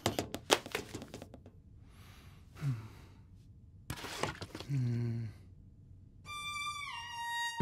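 Cartoon foley: an umbrella clattering to the floor in a quick run of knocks, then a man sighing wearily twice, each a breathy exhale ending in a low falling groan. Near the end comes a short musical sting of three falling notes.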